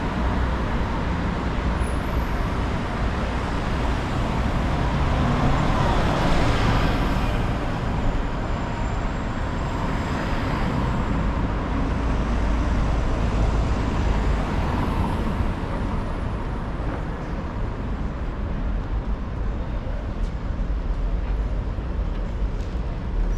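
City street traffic noise: a steady din of passing motor vehicles with a low rumble, swelling briefly about six seconds in.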